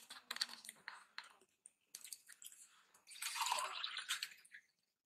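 Wet squishing and eating sounds as fingers work rice and dal, then, about three seconds in, water poured from a bottle into a glass for about a second and a half, the loudest sound.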